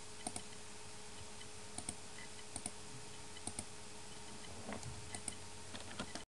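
Computer mouse clicking: about six quick clicks, each a press-and-release pair, spaced out over a faint steady hiss and hum.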